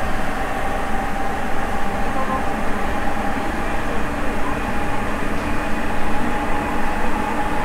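Sapporo Municipal Subway Tōhō Line 9000-series rubber-tyred train running at a steady speed between stations: even running noise with a steady whine held at one pitch.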